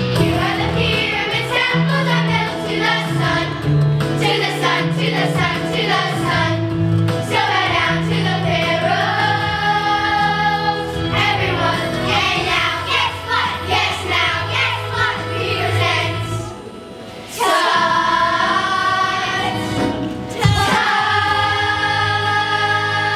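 A children's stage cast singing together as a choir over a musical accompaniment. The music drops away briefly about two-thirds of the way through, then the singing comes back in full, with a single sharp knock a few seconds later.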